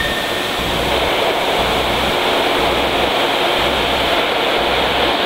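Fukuoka City Subway 1000N-series train approaching through the tunnel into an underground station: a steady rushing rumble that grows slightly louder, with a low throb pulsing about once a second.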